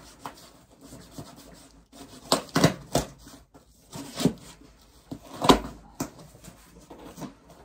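Large hunting knife slicing through packing tape on a cardboard box, with scraping and rustling of the cardboard and a few sharp cracks and rips as the flaps are pulled open, the loudest about two-thirds of the way through.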